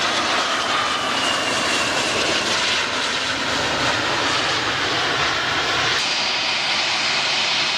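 Airplane engine sound: a steady, loud rushing jet noise with a faint whine that slowly falls in pitch, its character shifting slightly about six seconds in.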